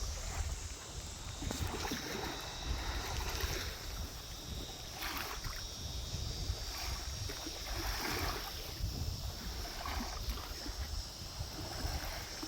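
Water lapping against a dock, with insects buzzing steadily in two high tones and wind rumbling on the microphone.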